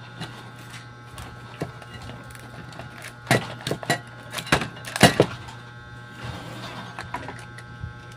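Scattered knocks and clicks of an amplifier's aluminium heatsink and circuit board being handled and worked loose from the chassis, the loudest knocks about three and five seconds in.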